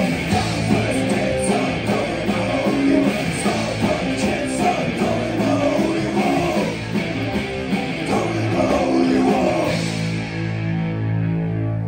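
Live rock band playing loudly: distorted electric guitars over drums. About ten seconds in the drums and cymbals stop and a final chord is left ringing out.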